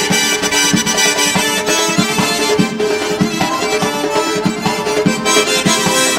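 Folk dance music: a melody over a steady beat.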